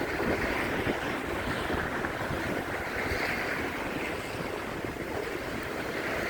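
Wind buffeting a phone's microphone, a steady rushing noise with low rumble.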